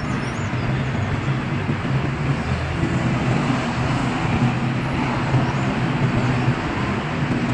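Steady street traffic noise, with the low steady hum of engines running beneath it.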